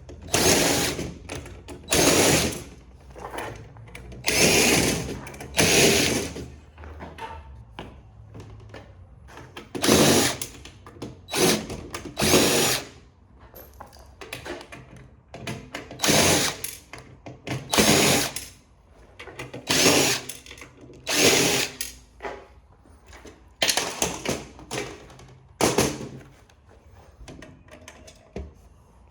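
Power drill run in about a dozen short bursts, each under a second, while backing out screws.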